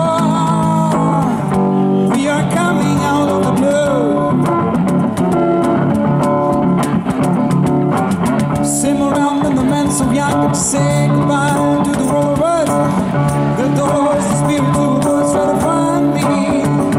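Live band jam of electric guitar and electric bass played through small portable amps, with a cajon keeping the beat, in a bluesy funk groove.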